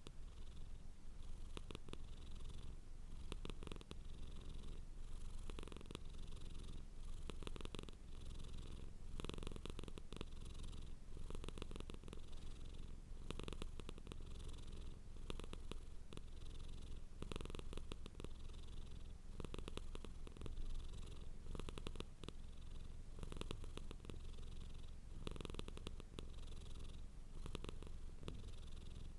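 Domestic cat purring continuously, the purr swelling and fading with each breath about once a second.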